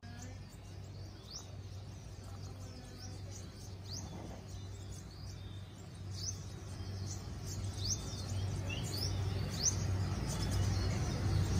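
Caged sunbirds calling: short, thin, rising chirps, scattered one at a time and coming more often in the second half, over a steady low hum.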